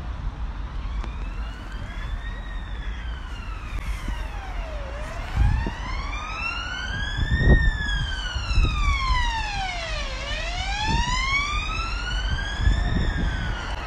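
A siren wailing, its pitch rising and falling slowly about every five seconds, loudest about halfway through.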